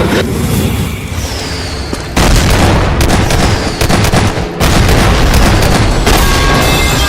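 Loud boom and explosion sound effects from about two seconds in: dense, bass-heavy blasts with sharp crackles. Steady musical tones come back near the end.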